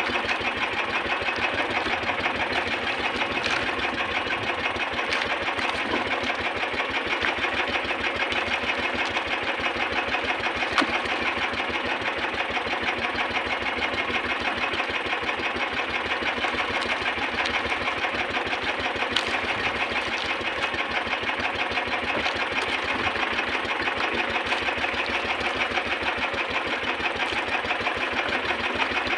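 A small outrigger boat's engine running steadily with a fast, even clatter. There is a single sharp knock about eleven seconds in and a fainter one near nineteen seconds.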